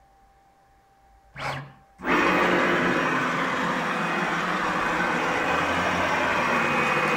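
A home-built CNC router's axis motors drive the machine across in a steady traverse during a tool-height probe routine: a loud, even mechanical whine that starts abruptly about two seconds in. It follows a short half-second burst of motor noise about a second in.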